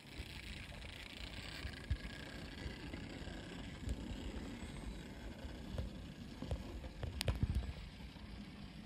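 OO gauge model steam locomotive and tender running along the track, a steady mechanical running noise with a few sharp clicks from the wheels over rail joints and points, the loudest about seven seconds in.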